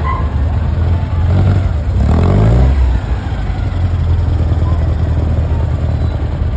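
Classic cars' engines rumbling as the cars drive past. One engine revs up about two seconds in, its pitch rising briefly.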